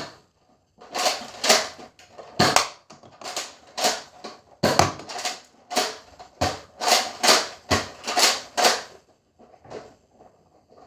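Nerf foam-dart blasters being primed and fired over and over: a string of about fifteen sharp plastic clacks and pops, irregularly spaced, a second or two apart at most.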